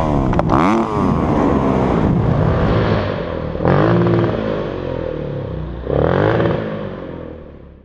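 Dirt bike engine revving hard, its pitch rising and falling as the throttle is worked, with sudden changes about three and a half and six seconds in. It fades out near the end.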